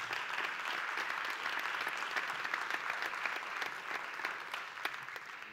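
Audience applauding: a dense, steady patter of many hands clapping that tapers off near the end.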